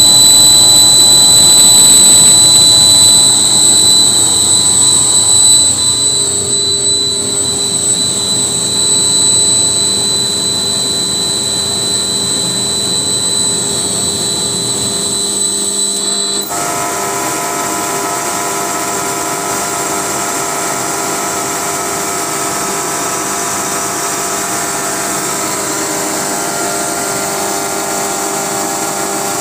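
Screw air compressor running loudly and steadily, with a high whine over a noisy hiss. The sound eases a little over the first several seconds, and about 16 seconds in the whine cuts off abruptly and the running sound changes tone.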